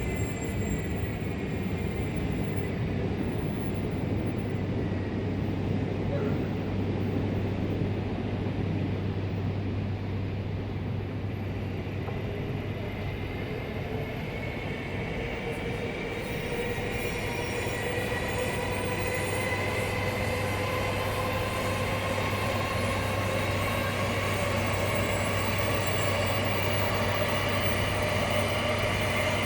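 Shinkansen bullet train at the platform: its electric traction motors' whine falls in pitch over the first few seconds, then from about halfway a new whine climbs steadily as a train pulls away and gathers speed, over a constant low hum.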